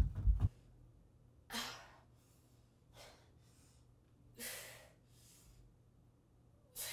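A woman's loud wordless cry breaks off about half a second in, followed by heavy breathing: short, sharp breaths about every one and a half seconds.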